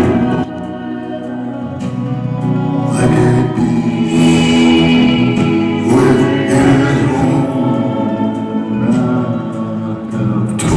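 Live band playing a slow song, with choir-like backing vocals singing over sustained keyboard-type chords and no lead lyrics.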